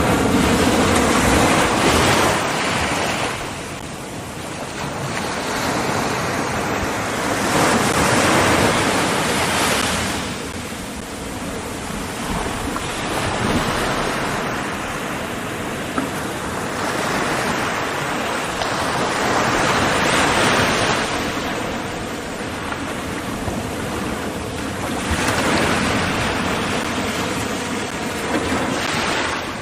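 Ocean surf: waves breaking and washing in, the noise swelling and fading every several seconds.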